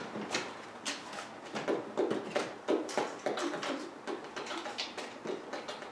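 Irregular clicks and taps of small picture cards being picked up and set down in a tray.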